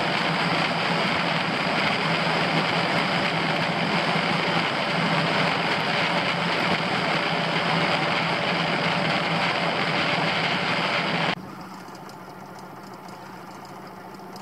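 Suzuki DF90A four-stroke outboard running steadily at speed, with the rush of wind and water over the hull. About eleven seconds in it cuts off suddenly to a much quieter steady low engine hum.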